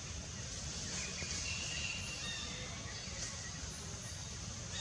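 Outdoor background noise: a steady low rumble with a few faint, short high chirps over it.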